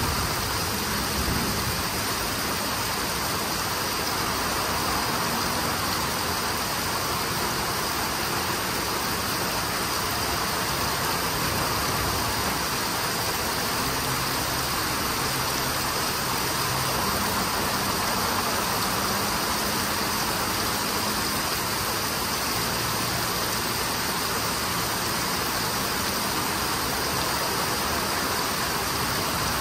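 Heavy thunderstorm rain pouring down on trees and ground: a continuous, even hiss that holds steady throughout.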